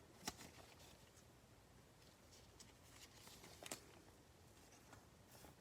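Near silence, with a few faint, short clicks and rustles of trading cards being handled and flipped, the clearest about a quarter of a second in and again a little past halfway.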